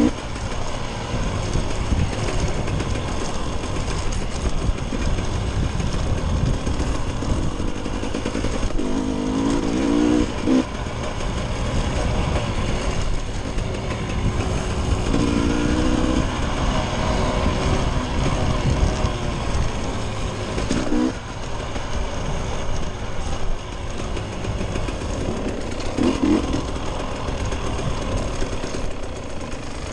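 Dirt bike engine running under way, its pitch climbing in short spurts several times as the throttle is opened, over a constant heavy rumble of wind and ride noise on the on-board microphone.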